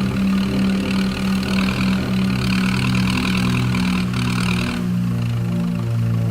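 An engine running steadily with a low hum, with a higher rushing noise that cuts off about five seconds in.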